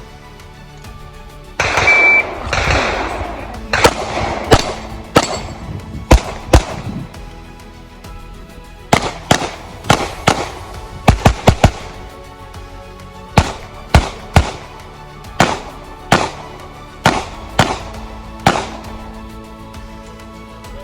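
Glock pistol shots fired in quick strings, about twenty in all, each a sharp crack, after a short electronic beep about two seconds in. Faint background music runs underneath.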